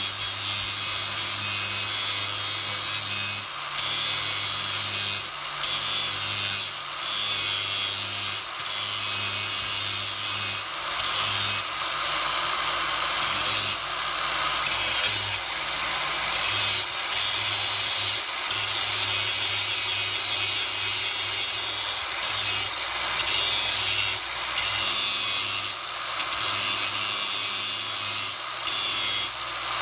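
Angle grinder running steadily with its disc grinding material off a metal RC wheelie bar part to make it fit, a harsh high-pitched grinding noise that briefly drops every second or two as the disc's contact with the part eases and resumes.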